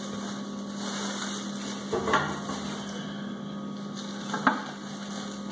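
Plastic wrapping rustling as a wrapped stainless steel pot is handled in its cardboard box, with two short knocks, one about two seconds in and a louder one about four and a half seconds in, over a steady low hum.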